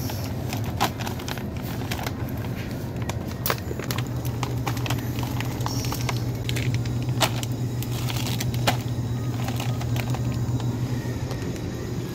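Plastic food packets crinkling and crackling as they are picked up and handled, in many short sharp crackles, over a steady low hum.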